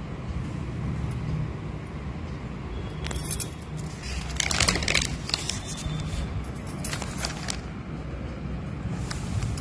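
Notebook pages being turned by hand: paper rustling and flapping about three to five seconds in and briefly again around seven seconds, over a steady low background rumble.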